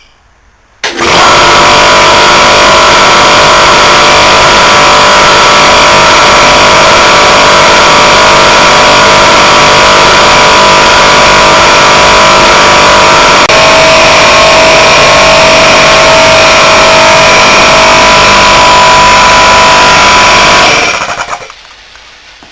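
Opened-up Danfoss Maneurop reciprocating compressor running flat out on a capacitor: a loud, steady mechanical clatter and hum that starts about a second in and cuts off near the end. The capacitor it runs on can't take it and overheats.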